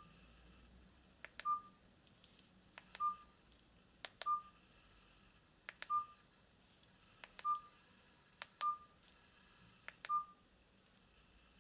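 Keys on a Philips E106 keypad phone pressed one at a time, about eight presses in a steady rhythm, roughly one every one and a half seconds. Each press gives a sharp click and then a short beep, always at the same pitch.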